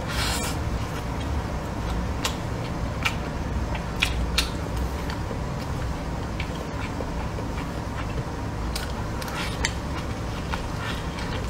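Close-up chewing of a mouthful of stir-fried dried tofu and meat: scattered wet mouth clicks and smacks, over a steady low hum.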